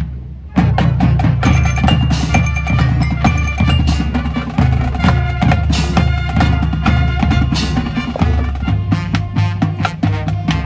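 Marching band playing: brass over a drumline with bass drums. The band comes back in on a loud hit about half a second in.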